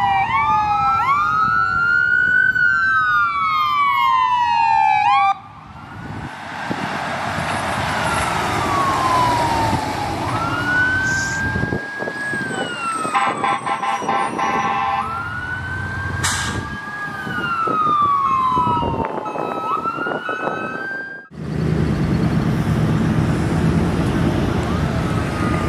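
Emergency vehicle sirens wailing in slow rising and falling sweeps over passing road traffic, two sirens overlapping at first. Near the end the siren fades and traffic noise is left.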